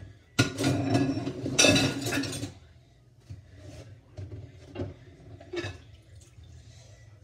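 Dishes being washed by hand in a stainless-steel sink: a loud splash and rush of water lasting about two seconds, then scattered clinks and knocks of plates and a pan.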